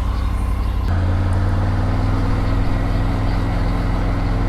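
Motorcycle engine running, with a steady pulsing note that gets louder about a second in as the throttle is opened, then holds steady.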